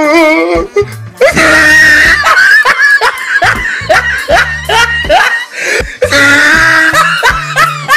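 Loud background music with a heavy bass line and quick rising, whooping slides over it, with shrieks or laughter mixed in.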